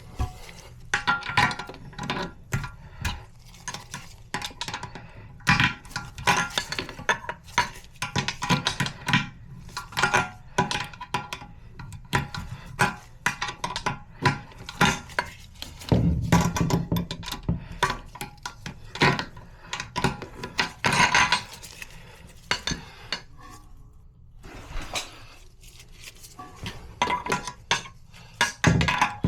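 Irregular clinks and knocks of hard parts and tools being handled during a toilet flush valve replacement. Many of the strikes ring briefly.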